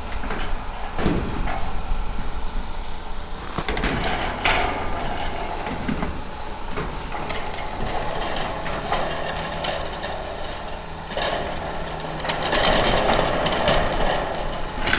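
Corrugated steel wall panels being handled and fitted onto a metal carport frame: a few sharp metallic knocks, then a louder stretch of rattling and knocking near the end as a sheet is lifted into place.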